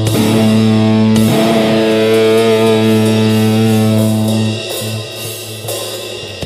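Distorted electric guitar and bass of a live thrashcore band holding one ringing chord as a song ends; the chord drops away about four and a half seconds in.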